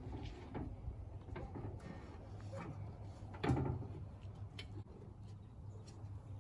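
Light knocks and rubbing as the rear window glass of a Honda Del Sol is shifted and pressed into its frame by hand, with one louder knock about three and a half seconds in, over a steady low hum.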